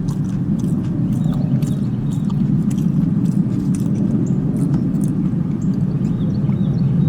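Close-up chewing and lip-smacking, with many small wet clicks, over a steady low rumble of an idling vehicle.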